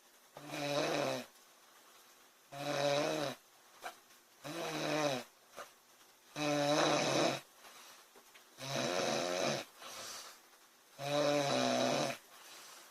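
A woman snoring in her sleep: six loud, pitched snores, each about a second long and coming about every two seconds, with fainter breathing between them.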